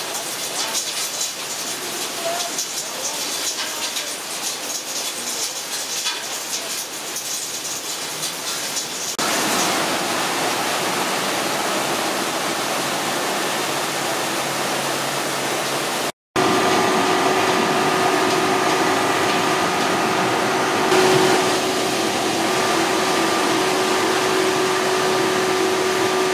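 Wet street sweepings and sludge pouring through a grate into a washing plant's feed hopper, a crackling rush of slurry. About nine seconds in it changes to a smoother, steady rush of water pouring into the hopper. After a brief break, the plant's bucket elevator and conveyor run with a steady machine hum holding several tones.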